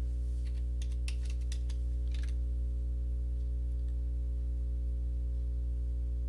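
Computer keyboard keystrokes, a quick run of about a dozen clicks in the first two seconds or so, over a steady low electrical hum that then continues alone.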